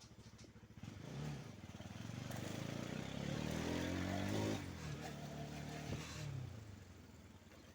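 Motorcycle engine revving up as it accelerates for a couple of seconds, then dropping back as the throttle closes about halfway through. There is wind rush on the microphone while it pulls, and a single sharp knock near the end.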